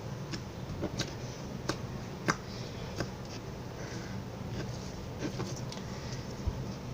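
Sticky homemade slime being handled, giving short sharp clicks and pops at irregular intervals, the loudest about two seconds in.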